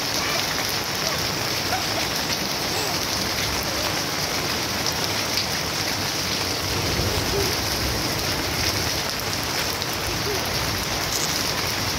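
Steady rain falling on garden plants and water-covered ground: an even, unbroken hiss with no let-up.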